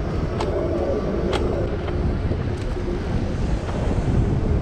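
Wind buffeting the microphone over a steady low rumble as a Lectric XP e-bike rolls along a sidewalk, with two sharp clicks about half a second and a second and a half in.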